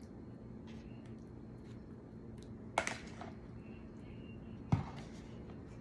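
A metal spoon clinking against a plastic food container while cooked shrimp are scooped out: two short sharp clicks, about three seconds in and near the end, the second with a dull knock, over a low steady hum.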